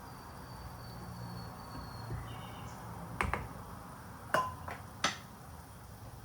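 Sharp taps and clicks of kitchenware being handled and set down: a quick pair about halfway through, then three more a second later. The loudest of them rings briefly, like a hard object struck.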